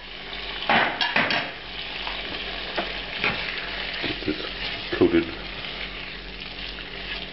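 Chicken pieces sizzling in thick tomato masala in a non-stick pan while a spatula stirs and scrapes through them. There are a few sharper scrapes about a second in and the loudest one about five seconds in.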